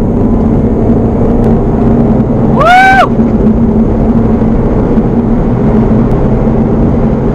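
Steady road and engine drone inside the cabin of a remapped 2007 Mini Cooper S Clubman at cruising speed, its turbocharged 1.6-litre four-cylinder holding a constant low hum. About two and a half seconds in, a short whoop rises, holds and falls.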